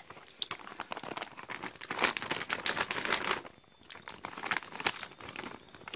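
Plastic snack bag crinkling as it is held and turned in the hand, in irregular spells of crackling with a short pause about three and a half seconds in.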